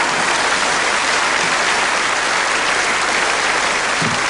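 A large audience applauding a comedian's punchline, a dense, steady clapping that holds at the same level throughout.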